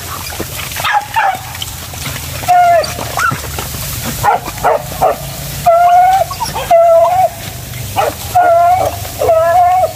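Pack of hunting dogs, beagles and village dogs, baying and yelping on a mongoose hunt: about a dozen high, drawn-out cries that come one after another, some close together.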